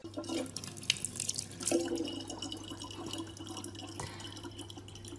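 Thin stream of water from a tap running steadily into the neck of a plastic water bottle, trickling and splashing.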